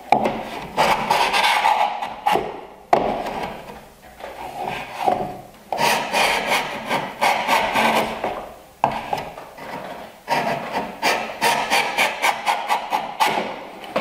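A low-angle iron miter plane (Lee Valley Veritas) is pushed in repeated strokes across the end grain of a board held in a wooden miter jack, shaving it to a 45-degree miter. Each stroke is a rasping cut that starts sharply and lasts about a second. The strokes come shorter and quicker in the last few seconds.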